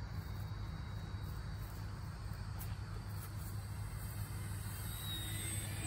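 Crickets chirping steadily over a low steady hum. Near the end a faint rising whine comes in: the electric motor of the radio-controlled Corsair model plane as it flies closer.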